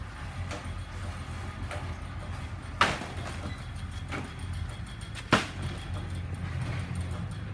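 Two sharp thuds, about two and a half seconds apart, of heavy cardboard boxes knocking against the stack as they are pulled off and handled in a truck's cargo box, with a few lighter knocks, over a steady low hum.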